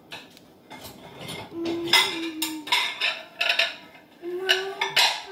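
Household clatter of dishes and cutlery: a string of sharp clinks and knocks, loudest about two seconds in and near the end. A held tone sounds twice alongside it.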